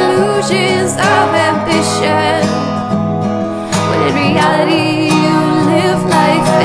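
Background song: strummed acoustic guitar with a singing voice that wavers in vibrato.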